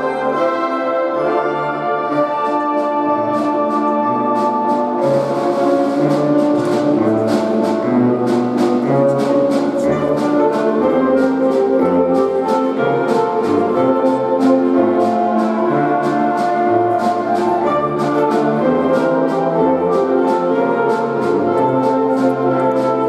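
Concert wind band playing a symphonic arrangement: sustained brass and woodwind chords, with percussion strikes coming in about five seconds in.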